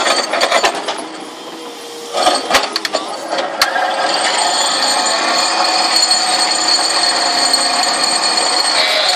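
Excavator working with a vibro impact ripper: clattering knocks at first, then from about four seconds a steady machine drone with a high whine.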